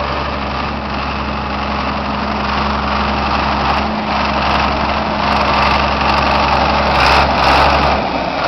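John Deere 4960 tractor's six-cylinder diesel engine running steadily at idle, getting a little louder and rougher near the end.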